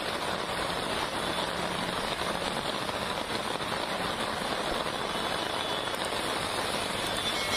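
Steady rushing noise of a waterlogged street, with vehicle engines running under it.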